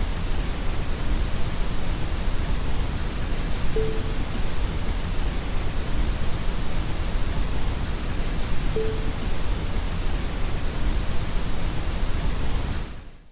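Warm static: a steady hiss weighted toward the low end, like pink noise. A short low beep sounds twice, five seconds apart, as a demo watermark. The static fades out at the very end.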